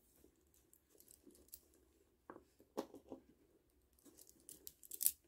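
Faint, scattered clicks and rustles of plastic pony beads and string being handled as a needle is threaded through the beads, with small clusters of clicks a couple of seconds in and again near the end.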